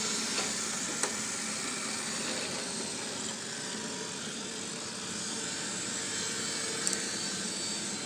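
Roborock E4 robot vacuum running steadily as it cleans, with a brief click about a second in and another near the end.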